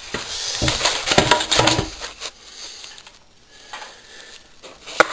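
Handling noise as the camera is moved and set down: knocks, scrapes and clinks over the first two seconds, then quieter, with one sharp click near the end.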